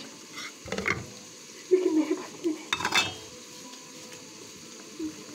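Kitchen dishes and metal utensils clattering as they are handled, with two sharp knocks: one about a second in and one about three seconds in.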